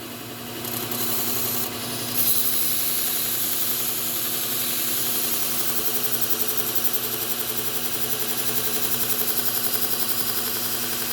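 Bucktool slow-speed belt sharpener running while a steel pruner blade is held against the abrasive belt. The grinding hiss of steel on the belt builds about two seconds in and holds steady over the motor's hum, with a slight even pulsing.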